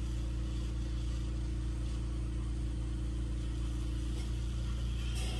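Steady electric hum and hiss from a lampworking setup: the electric mandrel spinner's motor turning the mandrel while the torch flame burns. A short tap near the end.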